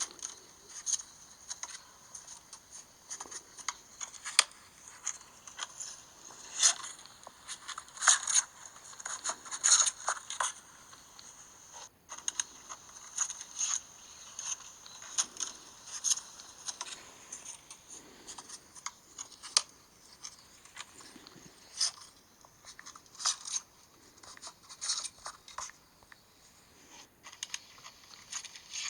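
An iPhone's speaker giving out an unexplained glitch noise, a gasha-gasha rattling: irregular scratchy crackles and clicks, mostly high-pitched, going on without let-up.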